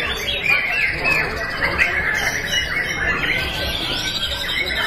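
Many caged songbirds singing at once in a contest, their short chirps and whistled phrases overlapping into a continuous chorus.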